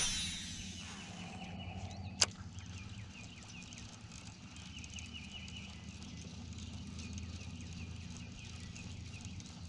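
A cast with a baitcasting rod and reel: a sudden swish with the spool whirring and fading off, then a single sharp click about two seconds in. Birds chirp steadily in the background over a low, steady hum.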